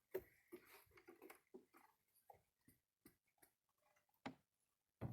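Near silence: room tone with faint scattered clicks and soft knocks, and a sharper click about four seconds in.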